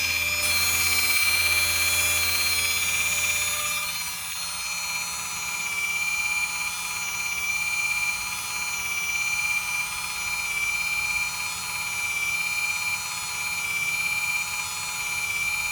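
Electric parking brake caliper motor on a Lexus running under battery power, a steady high whine as it winds the caliper piston back for a pad change. A low hum underneath fades out about four seconds in.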